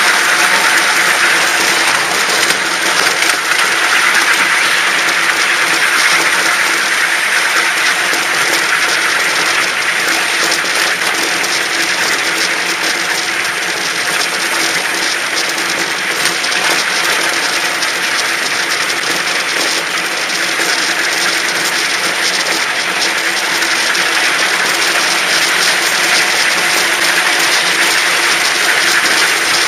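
Park railway train running on its track: a steady rolling noise with many small clicks and a faint engine hum underneath.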